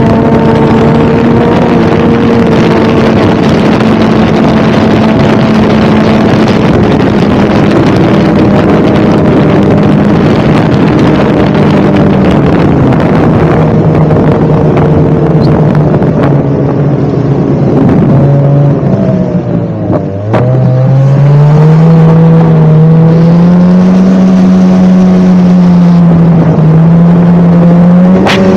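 Snowmobile engine running at speed, its pitch steady at first, then falling in steps as the sled slows. About two-thirds of the way through it dips sharply and briefly loses loudness, then the pitch climbs back as it speeds up again.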